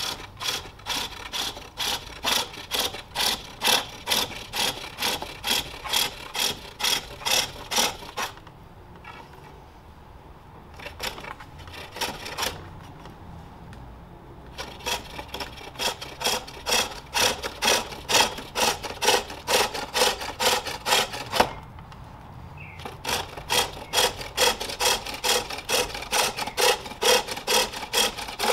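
Hand-forged turning tool cutting the inside of a jacaranda bowl on a spring pole lathe: a fast, rhythmic scraping, about two and a half cuts a second, as the treadle drives the work back and forth. The cutting pauses for several seconds about a third of the way in, and briefly again later on.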